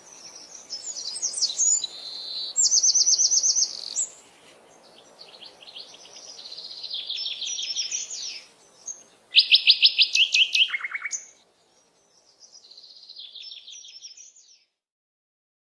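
Songbirds singing a series of short, high, rapid trills and chirping phrases, with the loudest phrases about three seconds and ten seconds in. The song stops about a second before the end.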